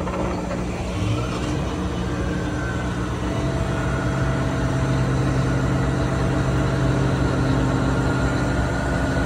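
Caterpillar 637 scraper's diesel engine running: its pitch rises over the first few seconds, then it settles into a louder, steady run about three seconds in, as the machine's hydraulics raise the bowl.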